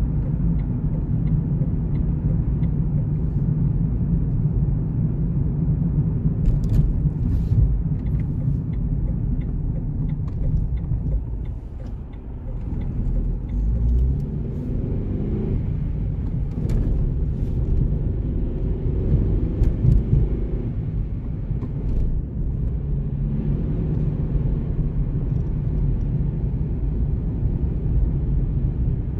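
Steady low rumble of a car driving along wet city streets: engine and tyre noise, easing briefly about twelve seconds in and then building again.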